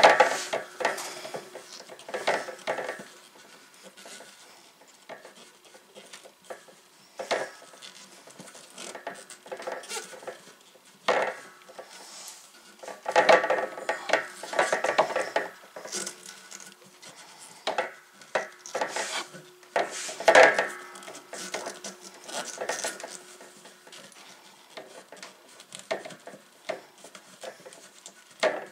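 PVC pipe knocking and scraping against the sheet-metal edges of the hole it passes through, in irregular clatters with brief metallic ringing, as its threaded end is worked at an angle onto a fitting. The busiest clatter comes about halfway through and again about two-thirds of the way in.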